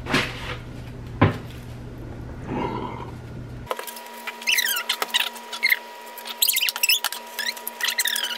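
Liquid poured from a can over a raw turkey in a foil roasting pan, with a couple of sharp knocks of the can. A few seconds in, the sound cuts abruptly to high-pitched, squeaky chatter in quick rising and falling chirps, like voices in fast-forwarded footage.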